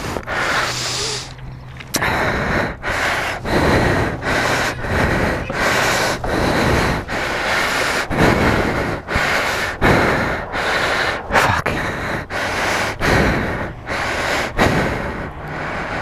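A man panting hard and fast, close to the microphone, in quick, regular breaths: out of breath from the effort of pushing a heavy sport motorcycle by hand.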